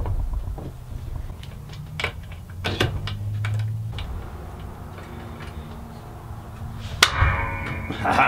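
Metal parts of a homemade 2x72 belt grinder's tensioning arm being fitted by hand: scattered small metallic clicks and clinks, then a louder ringing metal clank about seven seconds in as the heavy tension spring goes on.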